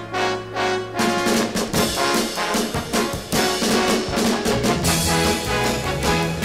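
Instrumental background music led by brass, with a fuller band and drums coming in about a second in.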